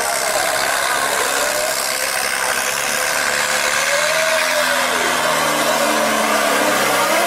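Tractor's diesel engine running hard under load as it drags a disc harrow through loose soil, its pitch rising and falling a couple of times.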